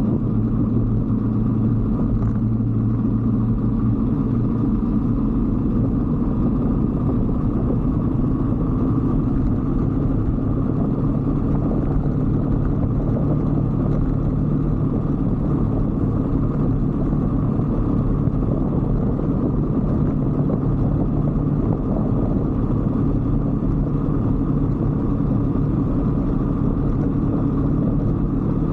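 125cc Brixton motorcycle's single-cylinder engine running steadily at cruising speed, its pitch shifting slightly about ten seconds in.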